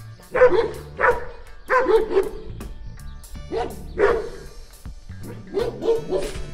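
A dog barking repeatedly in short groups of one to three barks, about nine barks in all, over background music.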